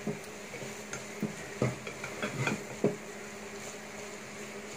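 Black plastic spatula stirring a dry minced chicken mixture in a pressure cooker, scraping and knocking against the pot several times in the first three seconds, then only a faint steady hum.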